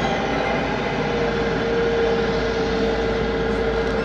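Airbus A321neo's CFM LEAP-1A turbofan engines running with a steady whine and rush of noise as the airliner rolls along the runway.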